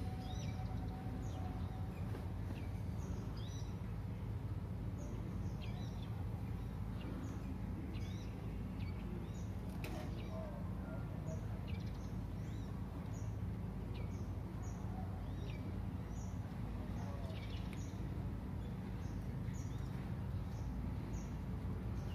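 Small birds chirping over and over in short, high, falling notes, about one a second, over a steady low outdoor background rumble.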